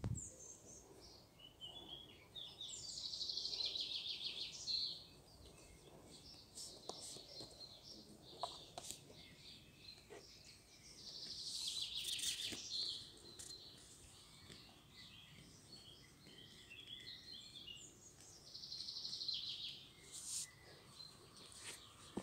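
A songbird singing: three fast trilling phrases of about two seconds each, several seconds apart, with a few faint clicks between.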